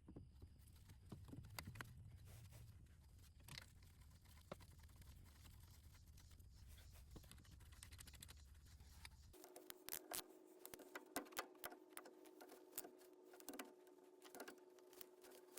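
Near silence with faint scattered clicks and taps; about nine seconds in, the background changes abruptly to a faint steady hum.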